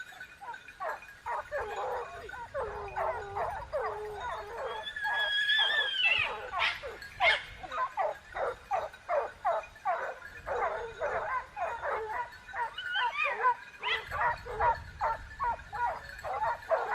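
Dog yipping and whining in a rapid string of short high yelps, about four or five a second, broken by a few longer drawn-out whines.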